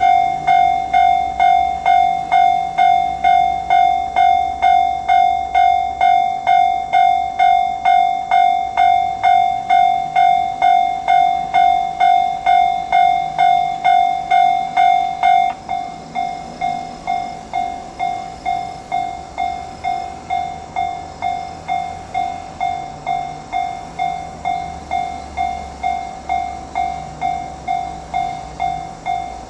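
Japanese railroad crossing's electronic warning bell clanging in a steady repeating ding, about two strokes a second. About halfway through it drops to a noticeably lower volume and carries on ringing.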